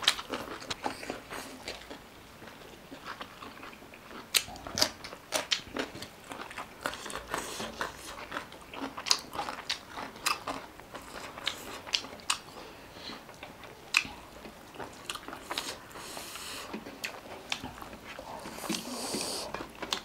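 Eating sounds close to the microphone: many short, sharp crunching bites and chewing as a meal of rice, fried chicken and raw salad vegetables is eaten, with two brief hisses a few seconds before the end.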